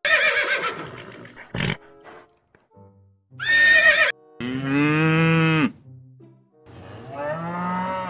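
Horses neighing: a series of separate calls, the first a quavering whinny right at the start and a longer, loud call around the middle. Faint background music plays between the calls.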